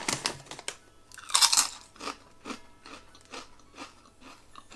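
Hand-cooked potato crisps being bitten and chewed: loud crunches, strongest about a second and a half in, then steady chewing crunches about two a second that grow fainter.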